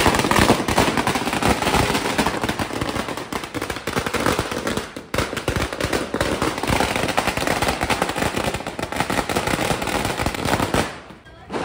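A long string of firecrackers going off in a rapid, unbroken run of bangs. The dense crackle dips briefly about five seconds in and stops shortly before the end.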